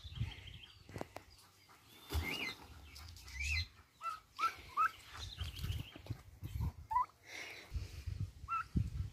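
Domestic turkeys calling with short rising peeps, several in quick succession about four to five seconds in and again near the end, with low thuds between them.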